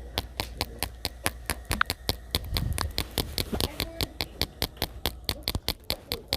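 Rapid, evenly spaced clicking pops, about six a second, with faint voices in the background.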